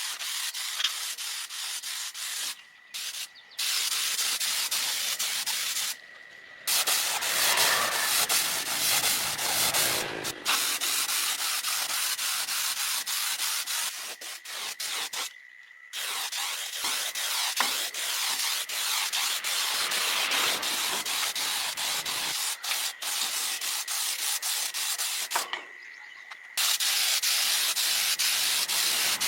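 Electric power tool sanding a surface: a steady scraping hiss with a thin whine under it, broken by several short pauses.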